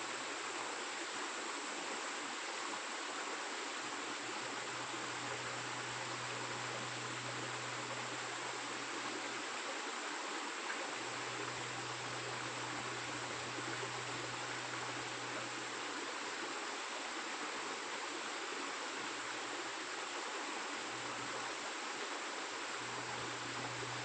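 Steady rush of running water from a rainforest stream.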